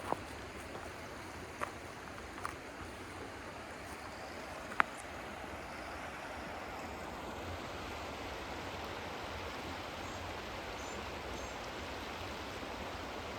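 River water running high, a steady rushing, growing a little louder after about six seconds. A few sharp clicks come in the first five seconds, the loudest about five seconds in.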